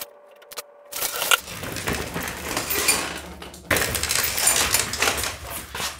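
Clattering and rattling as a plastic drain pan on a stand is shifted into place under a car on a lift, dense knocks and clinks that get louder a little before the end.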